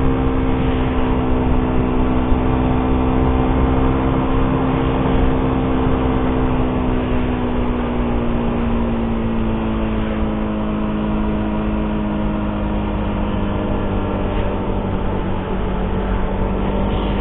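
Suzuki GSX-R150's single-cylinder engine running under way at a steady pitch, then easing slowly lower over the second half, with a low rush of wind noise beneath it.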